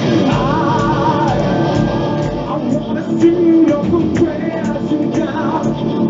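Live rock band playing on stage: a male lead singer sings a wavering melody into a handheld microphone over drums, bass and guitars, with regular drum hits.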